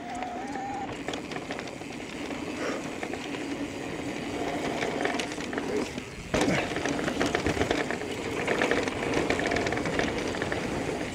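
Electric mountain bike riding fast down a dirt trail: tyres on the ground and the bike's frame and drivetrain rattling over rough terrain, with a steady whine running under it. About six seconds in the noise drops out for a moment, then comes back with a sudden jolt and heavier rattling.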